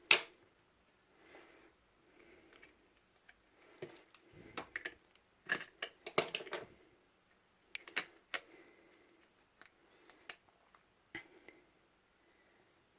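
Irregular small clicks and taps from a cheap plastic action camera's body and internals being handled and pried apart with a small screwdriver during a teardown. The sharpest clicks come right at the start and again about six seconds in.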